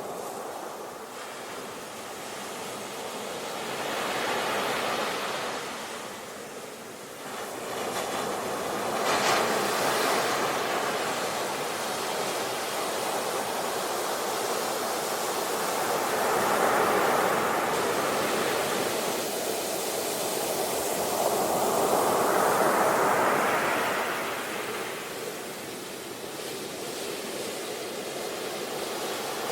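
Sea waves breaking and washing up the shore, a steady rush of surf that swells and falls away about every five to seven seconds.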